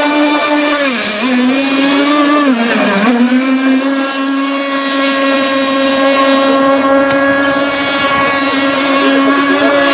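O.S. Max 50SX Hyper Ring two-stroke glow engine of a radio-controlled mono-hull boat running at high revs, a steady high-pitched buzz. Its pitch dips briefly twice, about a second in and about three seconds in, then holds steady.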